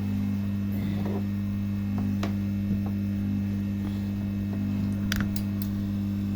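Hot air rework station running, a steady electrical hum from its blower, with a couple of faint clicks.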